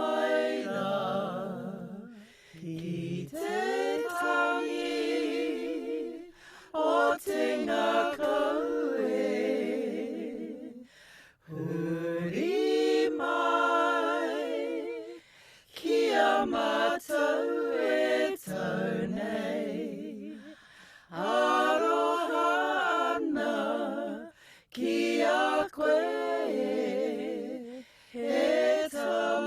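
Unaccompanied voices singing a slow Māori song (waiata) in long, wavering phrases of a few seconds each, with brief breaks for breath between them.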